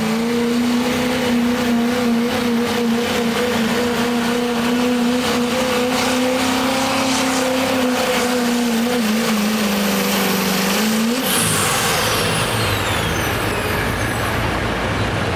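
Chevrolet Silverado's Duramax diesel V8 pulling a sled at full throttle, a steady high engine note held for about eleven seconds that sags slightly before the throttle is lifted and it cuts off. A high whistle then falls away in pitch.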